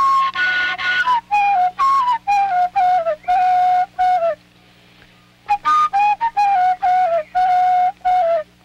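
Flute melody of short notes, mostly on one middle pitch, with small falling steps and brief gaps between them. It pauses for about a second about halfway through, then goes on.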